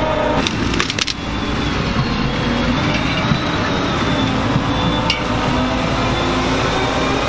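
Ropa Tiger 6S sugar beet harvester working in the field: its engine and lifting and cleaning machinery run steadily, with beets clattering through it. A few sharp cracks come about half a second to a second in, and one more near five seconds.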